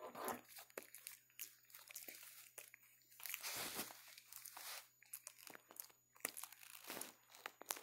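Soft, close rustling and crackling of fur against clothing, with scattered small clicks, as macaques clamber over and groom a person lying down. A longer, louder rustle comes about three and a half seconds in.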